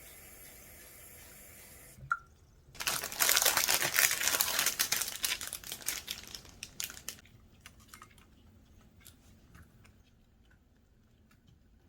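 A click, then a loud stretch of crinkling and rustling as something is handled, thinning out into scattered small ticks.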